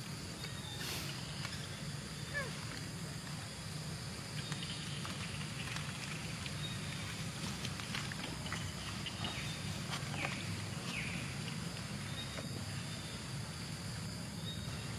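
A few short, high squeaks from macaques, near the start and twice about ten seconds in, over a steady forest background of a constant high insect-like drone and a low hum, with faint clicks and rustles.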